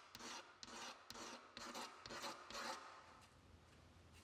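Small hand scraper blade scraping old shellac finish off the wooden panel of a metronome case: about six faint, short scraping strokes, roughly two a second, stopping about three seconds in.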